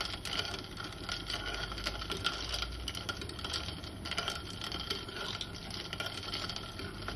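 A metal spoon stirring ice cubes in a glass mason jar of juice: a steady run of rapid clinks and rattles as the ice knocks against the glass and spoon.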